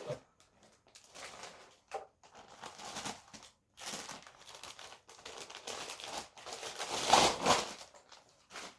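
Packaging crinkling and rustling in irregular bursts as a newly unboxed baseball leg guard is handled and unwrapped, loudest about seven seconds in.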